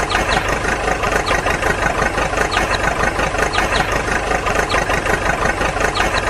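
Tractor engine sound idling steadily, with a fast, even chug.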